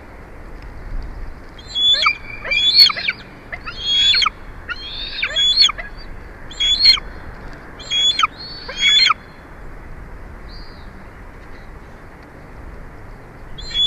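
Bald eagle calling: bursts of high, sharp, chittering notes, each falling quickly in pitch, for about seven seconds. A pause follows, then the calls start again at the very end.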